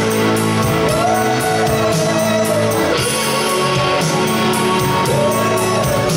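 Live rock music: an electric guitar plays long, bending lead notes over a bass line and a steady beat.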